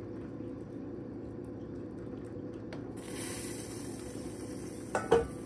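A black plastic spatula stirring and scraping beef slices in simmering soy-sauce gravy in a nonstick pan, with two sharp knocks against the pan a little before the end.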